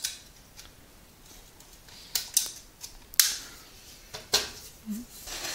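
A hard-shelled external modem being handled and turned over on a desk: a handful of separate clicks and knocks, with short scraping rubs after some of them. The loudest knock comes a little over three seconds in.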